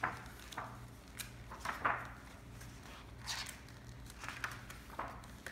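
Gift-wrapping paper crinkling and rustling in short, scattered bursts as small fingers pick at the tape on a wrapped present.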